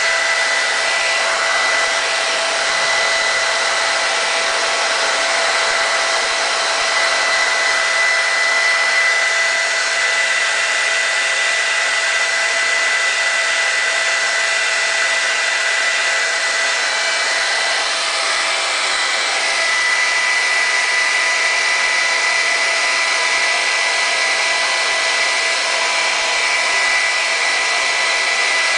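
Handheld hair dryer running steadily, a rush of air with a steady whine on top, blowing hot air onto a vinyl sticker on a motorcycle fairing to soften its adhesive for peeling.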